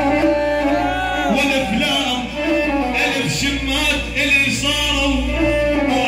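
Male singer performing an Arabic mawwal live into a microphone over a PA, his voice gliding through long ornamented lines, with instrumental accompaniment.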